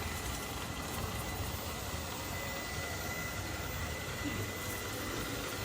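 ILIFE V5s Plus robot vacuum-mop running across the floor: a steady motor hum with a constant high whine.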